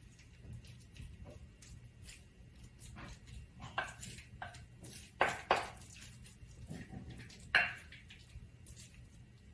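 A utensil scraping and knocking against a bowl as a wet onion mixture is scooped out, with a few sharp clinks between about four and eight seconds in.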